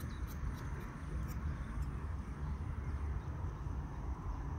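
Steady low rumble of urban background noise, with a few faint light clicks in the first two seconds as the carbon rod-pod parts are handled.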